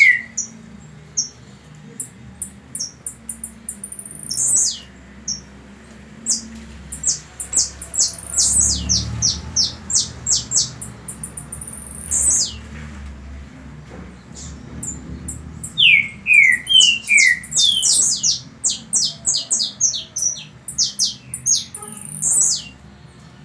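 Small birds chirping: many short, high chirps and quick downward-sliding calls. They come thickest around eight to twelve seconds in and again from about sixteen seconds on.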